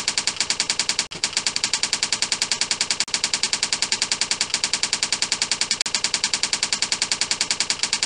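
Typewriter sound effect: rapid, evenly spaced key clicks, about ten a second, with a brief break about a second in.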